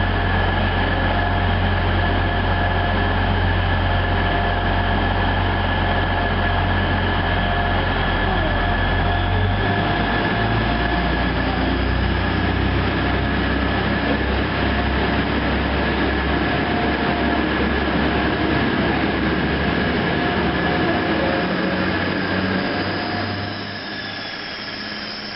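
Class 180 diesel multiple unit's underfloor Cummins diesel engines running with a steady high whine; about ten seconds in the low engine note shifts as the train powers up and pulls away, and the sound gets quieter near the end as it moves off.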